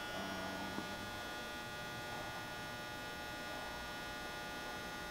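Steady electrical hum from a powered-up CNC vertical mill, a set of unchanging tones with no pitch change and no knocks.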